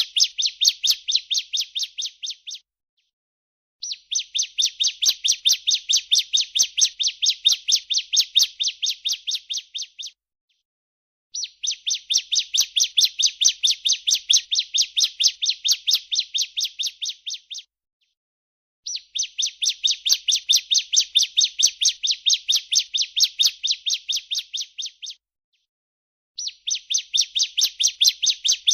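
Female bar-winged prinia (ciblek) giving its 'breeen' call: long trains of rapid, evenly spaced high notes, each lasting about six seconds and fading toward its end. After a short pause a new train begins, about every seven and a half seconds.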